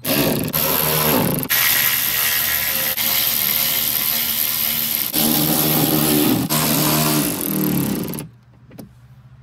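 Cordless drill/driver spinning the fender liner screws back in, its motor whining in runs of one to two seconds with the pitch sagging and rising under the trigger, then stopping about eight seconds in.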